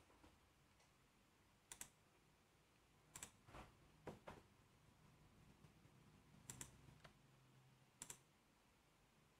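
Faint computer mouse clicks, several spread a second or more apart, most of them a quick double tick of a button pressed and released, over near-silent room tone.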